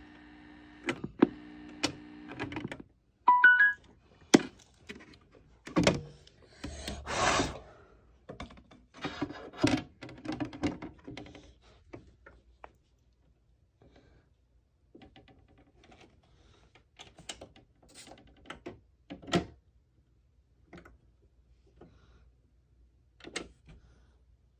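Handling noises on a record player: an irregular run of knocks, clicks and thunks as the vinyl record and the player are worked on by hand, with a brief rubbing hiss about seven seconds in. Faint music plays for the first two or three seconds.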